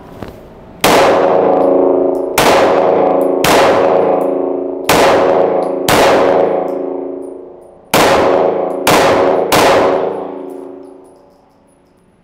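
Eight 9mm pistol shots from a Glock 19X, fired at an uneven pace about one to two seconds apart. Each shot is followed by a long ringing echo off the hard walls of the indoor range.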